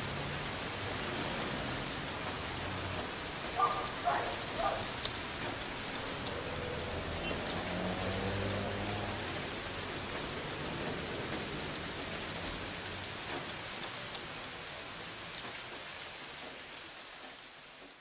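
Steady rain falling, with scattered sharp drips, fading out near the end.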